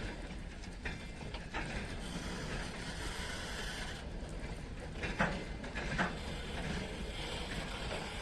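Freight wagons of a shunting train rolling slowly, over a steady low rumble, with a few sharp wheel knocks at rail joints about a second in and again around five and six seconds.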